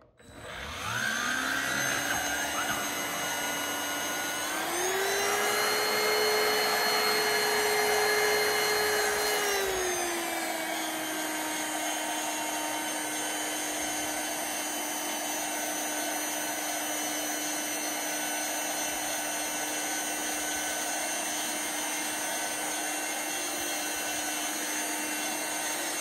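Black+Decker Powerseries+ 16V MAX cordless stick vacuum starting up with a rising whine, then running steadily while it cleans a shag rug. About five seconds in the motor pitch climbs higher and holds for about five seconds, then falls back to a steady lower whine.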